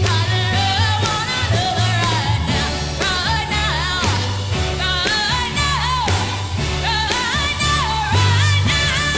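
Live pop song: a woman sings a melody with vibrato over a band with a pulsing bass line.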